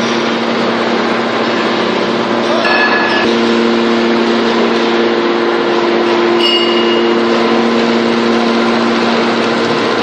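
TCM-MF315 hydraulic scrap baler running: a loud, steady machine hum with a droning tone that firms up about three seconds in, over a noisy mechanical clatter. Two brief high squeals cut through, about three seconds in and again near six and a half seconds.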